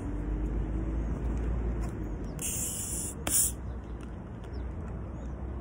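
A plastic bottle of Coca-Cola is twisted open: two short hisses of escaping gas, the second with a click, come about two and a half to three and a half seconds in. A steady low rumble runs under them.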